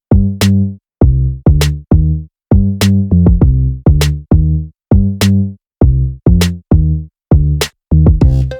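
Electronic backing music with a drum-machine beat: sharp snare and hi-hat hits over short, punchy bass notes, each note cut off abruptly in a steady rhythm.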